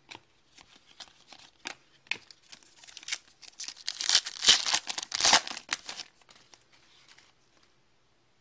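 Hockey trading cards handled by hand: light clicks and card sliding on card, building to a louder stretch of rustling and crinkling in the middle that then dies away.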